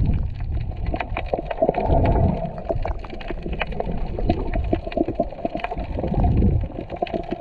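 Water sloshing and gurgling around a camera held underwater while snorkeling, heard muffled, with low surges about two seconds in and again near the end, and frequent small clicks and crackles throughout.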